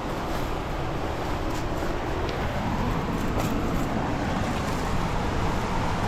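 Rushing creek water, a steady full roar, from a creek running high and deep with spring runoff.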